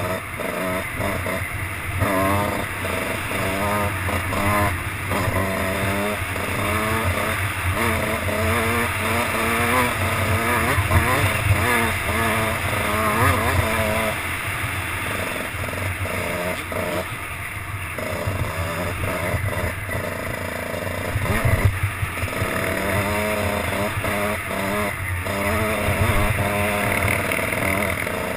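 Dirt bike engine heard from the rider's helmet camera, its pitch rising and falling over and over as the rider accelerates and backs off along the trail.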